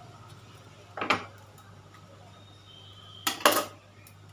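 Kitchen utensils knocking against dishes: one sharp clink about a second in, then a quick double clink near the end, over a faint low hum.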